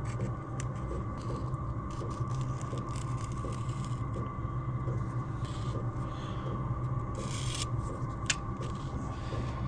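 Aluminium sheet being roughed out to shape by hand: irregular short clicks and scrapes of metal being cut and worked, over a steady low hum.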